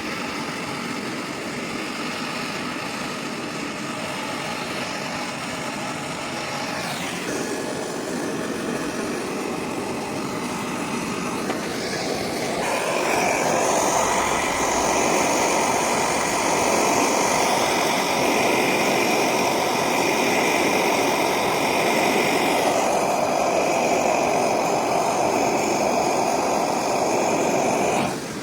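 Newly installed air-conditioning compressor running with the engine idling, a steady mechanical hum. About 12 seconds in it grows louder and a steady high whine sets in, with a brief falling sweep a few seconds before.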